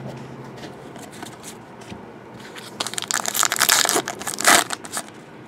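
Trading-card pack wrapper crinkling and tearing as it is opened, a dense run of crackling starting about halfway through and lasting about two seconds.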